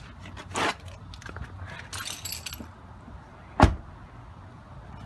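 Handling noises: a few short rustles and a brief jingle of small metal pieces, then one sharp thump about three and a half seconds in.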